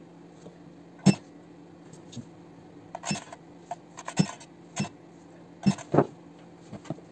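Handheld spot welder pen firing on the terminals of lithium-ion cells while the parallel connections of a 24 V battery pack are welded: about six sharp snaps at irregular intervals over a steady low hum.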